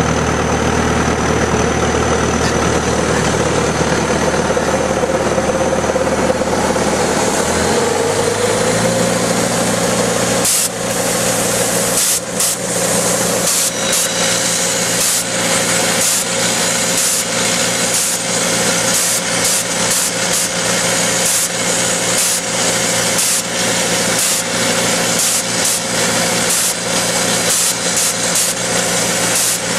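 Tractor engine running steadily, then revving up about 8 seconds in to drive the hydraulics of a Drillcom RD22 rock drill; from about 10 seconds in the drill is hammering into rock, a harsh rapid rattle with a high hiss over the engine.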